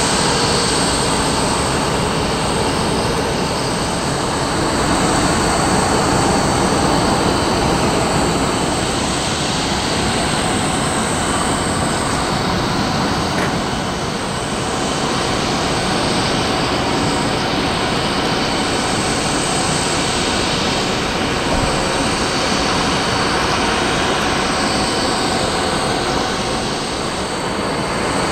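Steady jet-turbine noise, a broad continuous rush with a faint high whine running through it.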